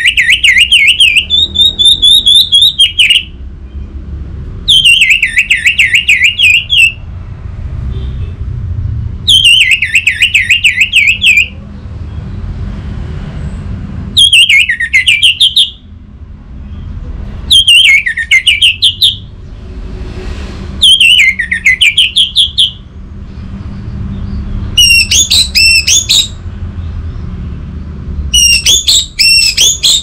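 Orange-headed thrush (anis merah) singing: loud phrases of rapid, slurred whistled notes, each about two seconds long, repeated every four seconds or so, with faster, more tangled phrases near the end. A low steady rumble runs underneath.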